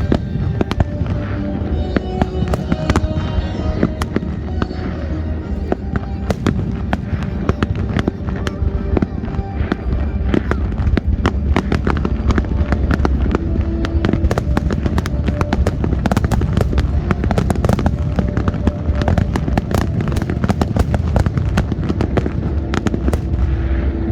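A fireworks display firing a rapid run of bangs and crackles, thickest in the middle, over the music played with the show.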